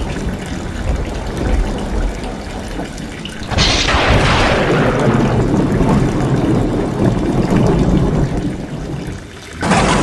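Rain pouring off roof tiles in a steady runoff stream, with a sudden crack of thunder about three and a half seconds in that fades into a low rumble. Another sudden burst of thunder comes near the end.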